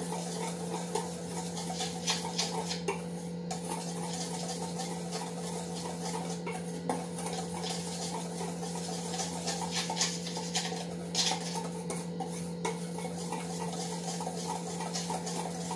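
Wire whisk stirring dry flour and cocoa powder in a stainless steel bowl: irregular light scrapes and clinks of the wires against the metal. A steady low hum runs underneath.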